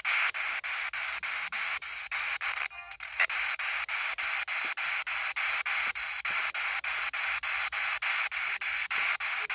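P-SB7T Spirit Box sweeping the FM radio band: a steady static hiss chopped into short pieces several times a second as the radio jumps from frequency to frequency.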